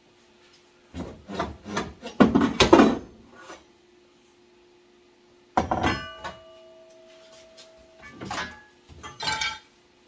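Hand work on metal: irregular scraping and knocking, with one sharp clang about halfway through that rings on for a couple of seconds, then two short scrapes near the end.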